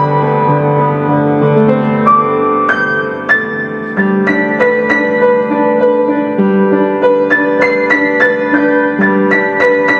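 Background music: piano playing chords and a melody of plucked-sounding notes, with a brief softening a little after three seconds.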